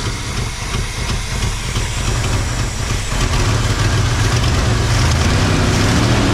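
Carbureted engine of a 1987 Ford F150 idling just after starting, with its ignition timing too far advanced in the owner's judgement. About five seconds in its note turns steadier and more even.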